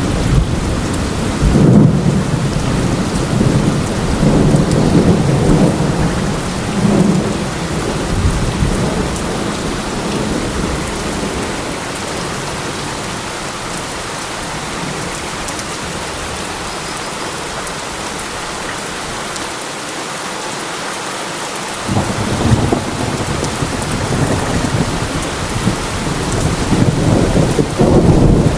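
Steady rain with low rolling rumbles of thunder. The rumbling dies away near the middle, leaving the rain alone, and returns fairly suddenly about three quarters of the way through.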